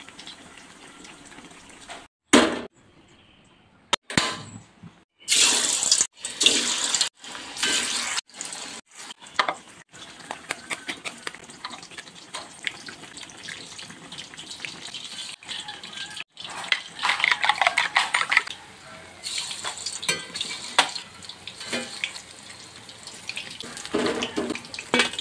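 Home-cooking sounds in a run of short cuts: food being cut and handled, with a steady hiss, and tofu frying in hot oil near the end.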